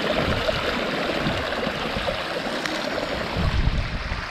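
A small waterfall rushing and splashing over a fallen tree in a rain-swollen creek, a steady even rush of water. A brief low rumble on the microphone about three and a half seconds in.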